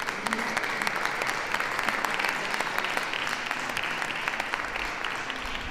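Audience applauding: dense clapping that builds at once, holds steady and begins to thin out near the end.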